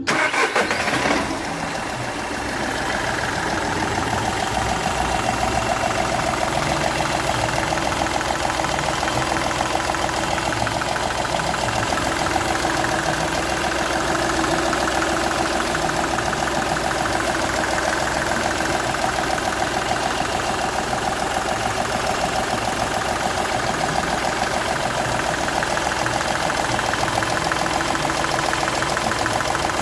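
Seat Ibiza's 1.2 TDI three-cylinder diesel engine idling with an even, rhythmic knocking, louder for the first second or so. The noise comes from compression escaping from the first cylinder past a burnt injector seal.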